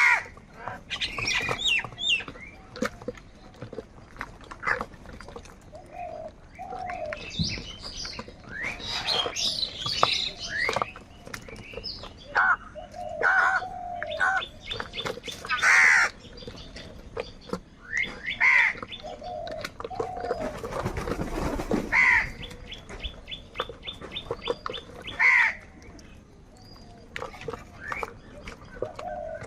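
Crows cawing, loud harsh calls coming every few seconds, with smaller birds chirping in between, most busily about a third of the way in.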